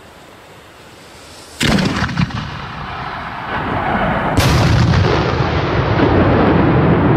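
A 60 mm red-comet salute shell fired from a mortar: a sharp thump of the lift charge about a second and a half in, then about three seconds later the loud bang of the salute bursting overhead, followed by a long, loud rumble that carries on.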